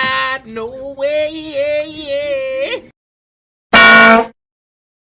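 A voice singing long, wavering held notes that cuts off abruptly just under three seconds in. After a moment of dead silence comes a short, very loud blaring tone of about half a second.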